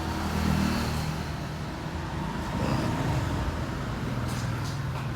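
A steady low engine hum, with a few faint clicks near the end.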